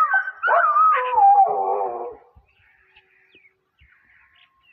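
A dog howling in long, wavering tones that slide up and down in pitch, stopping about two seconds in.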